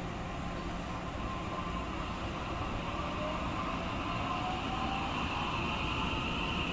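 Taiwan Railway EMU600-series electric multiple unit pulling away from a station. The whine of its traction motors slowly rises in pitch as it gathers speed, over a steady low rumble of the cars rolling on the rails.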